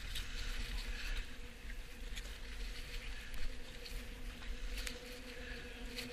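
Wind rumbling on the microphone over a boat on open water, with a faint steady hum underneath and scattered light clicks and small water slaps.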